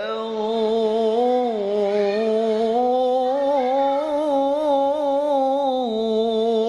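A voice reciting the Quran in a drawn-out melodic style: one long held note with quick wavering ornaments. It steps down in pitch early on, climbs higher about halfway and drops back down near the end.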